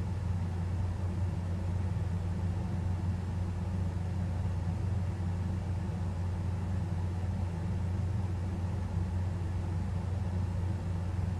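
Steady low hum with faint hiss, unchanging throughout, with no distinct sounds from the mouse.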